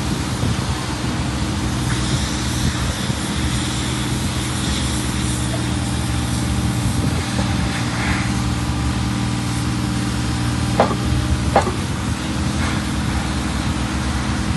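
Takeuchi TB216 mini excavator's diesel engine running steadily while the machine tracks and works its hydraulics, with two sharp knocks close together about 11 seconds in.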